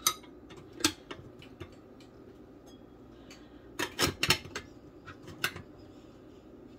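Sharp metal clinks and taps from a 1950 metal coffee percolator's lid and basket cover being handled and set in place: a few single clicks, with a quick cluster of them about four seconds in.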